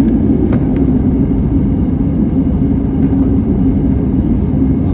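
Steady cabin roar of an Airbus A320 in flight, engine and airflow noise heard from inside the passenger cabin, deep and unchanging.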